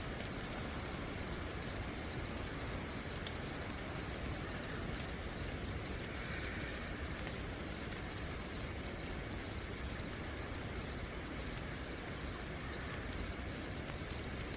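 Steady night rain falling, with crickets chirping in a continuous high, rapidly pulsing trill.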